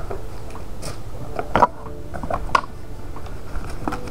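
Light clicks and knocks of small objects being handled on a tabletop, with one sharper knock about a second and a half in, over a steady low hum.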